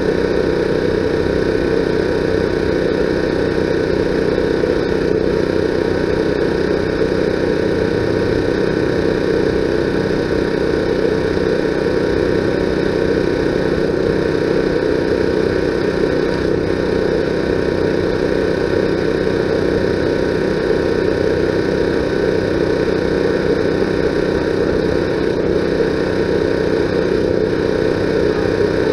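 A motor running steadily at one constant speed: an even hum with several held tones that does not change.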